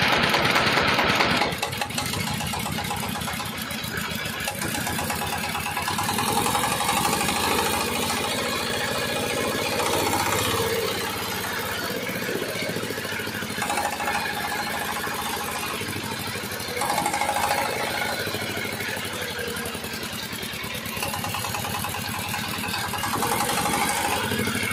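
Changfa 1115 single-cylinder diesel engine running, a fast, even firing knock, louder for the first second and a half and then steady with slight rises and falls in level.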